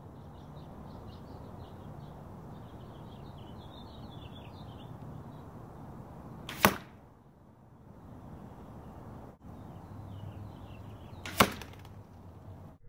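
Two arrows hitting a foam block archery target, each a single sharp thwack, about five seconds apart. The arrows are Gold Tip carbon arrows tipped with Montec G5 broadheads.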